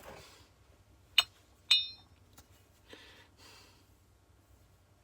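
Two sharp metallic clinks about half a second apart, the second ringing briefly, from metal tools or compressor parts being handled. A faint breath follows.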